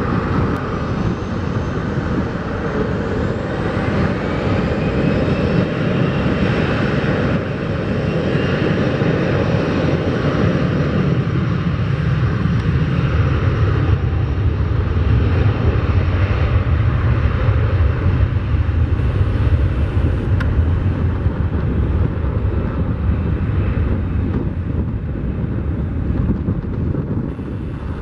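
Boeing 737-500's CFM56 turbofan engines at takeoff thrust. A rising whine as the engines spool up over the first several seconds gives way to a steady, deep rumble as the jet accelerates down the runway toward lift-off.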